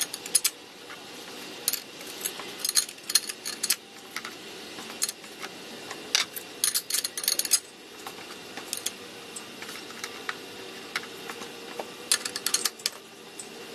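Light metallic clinks and clicks in short clusters, several times over, as thin steel and friction clutch plates for a Ford C6 transmission's direct clutch are handled and stacked.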